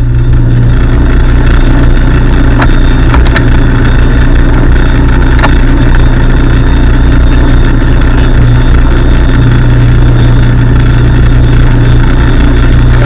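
Metal lathe running steadily under power, its electric motor and drive giving a constant low hum, with a few light clicks about three and five and a half seconds in.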